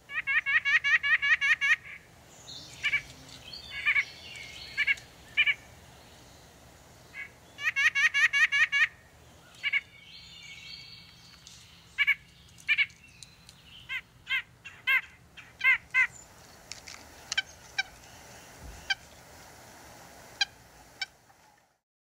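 White-breasted nuthatch calling: two rapid runs of nasal notes, each about a second and a half long, and many single nasal calls spaced through the rest, with fainter bird chatter behind.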